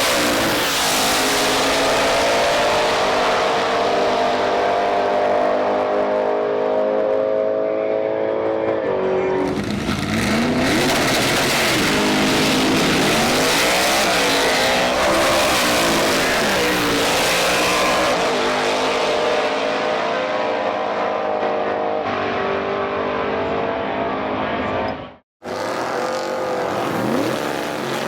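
Drag race car engines revving and accelerating hard, their pitch climbing and falling again and again through runs and gear changes. The sound cuts out abruptly for a moment about 25 seconds in.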